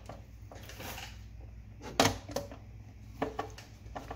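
Screwdriver working a terminal screw inside a metal electrical box: a sharp metallic click about two seconds in, then a few lighter clicks and taps as the screw is tightened.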